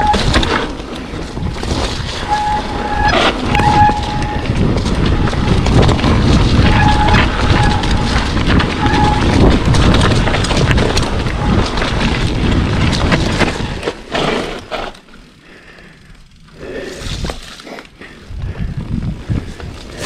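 Mountain bike descending a dirt singletrack: steady rumble and rattle of tyres and bike over the rough trail, with wind on the microphone. Several short squeals from the disc brakes in the first half. The noise drops away for a couple of seconds about two-thirds through, then comes back.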